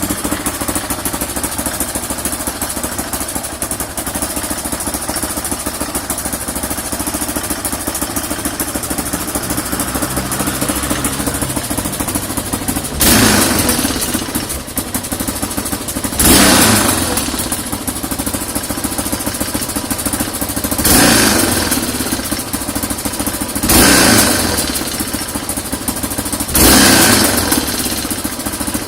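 Yamaha XT600 Ténéré's air-cooled single-cylinder four-stroke engine idling steadily, then blipped five times, each rev rising sharply and dropping back to idle. It holds a fairly steady tick-over of around 1450 rpm after the air mixture jet was cleaned and the carbs were set.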